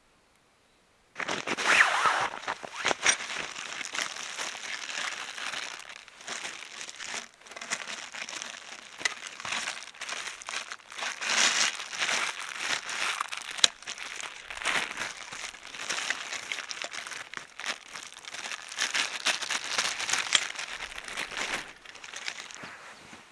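Close, continuous crinkling and rustling with many small crackles, as of something being handled or crumpled, starting about a second in.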